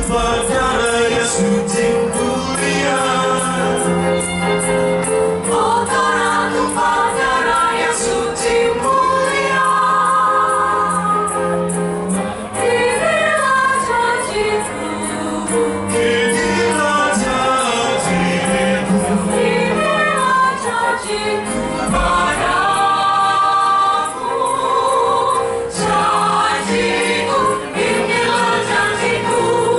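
Mixed choir of men and women singing in harmony into handheld microphones, with long held notes.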